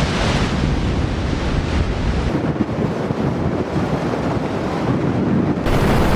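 Strong wind blowing over the microphone, a loud steady rushing noise that changes abruptly twice where clips are cut together.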